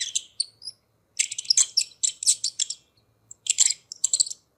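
A rodent squeaking: runs of rapid, very high-pitched squeaks in three bursts with short pauses between them.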